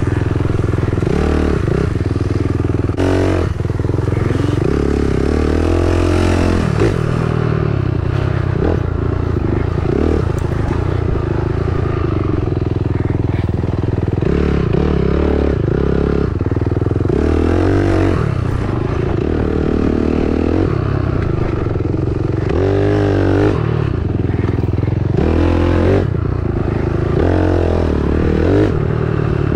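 Dirt bike engine being ridden, its revs rising and falling every few seconds with the throttle.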